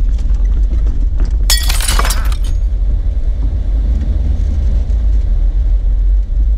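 Jeep Wrangler driving slowly along a wet dirt road: a steady low rumble of engine and tyres. About one and a half seconds in, a loud crackling, crunching noise lasts about a second.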